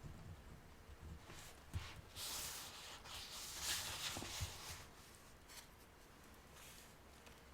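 Calligraphy pen scratching across paper in a few strokes, with a couple of light taps in between.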